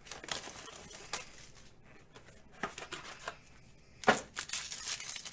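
Trading cards and their packaging being handled, an irregular run of short scratchy rustling strokes, with a sharper knock about four seconds in.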